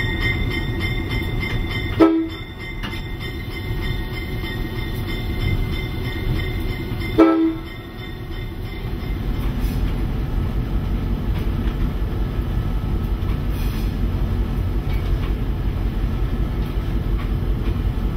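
Diesel locomotive running along the line: a steady low rumble of engine and wheels on the rails. A steady tone sits over it at first and cuts off with a brief loud burst about two seconds in; a second such burst comes about seven seconds in.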